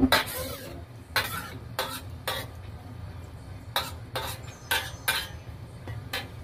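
Long metal spatula scraping and clinking against a stainless steel wok while stirring cubed vegetables in a little liquid. It makes a string of short, sharp scrapes and knocks, about ten in all, with a pause of just over a second in the middle.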